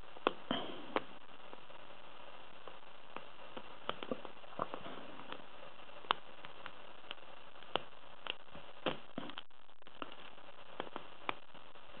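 Lock pick and tension wrench working the pins of an ISEO brass padlock: small, irregular metallic clicks and ticks, scattered unevenly, over a steady hiss.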